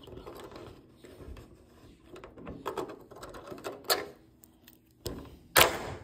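Metal clicks and rattles from a sukemichi keyed locking hood pin latch being worked with its key so the pin can be pulled free, with a sharp loud click near the end.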